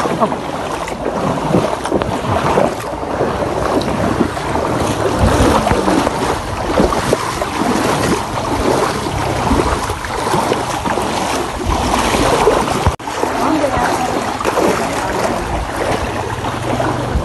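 Water sloshing and splashing as people wade through knee-deep floodwater.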